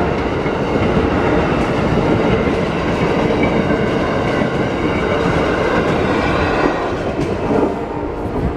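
Train passing close by: a loud, steady rumble and clatter of rail car wheels on the track, easing off near the end.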